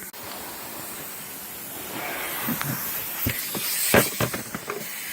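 A steady hiss. From about two seconds in comes a run of irregular clicks and knocks, the loudest near four seconds: the plastic center console being worked loose by hand.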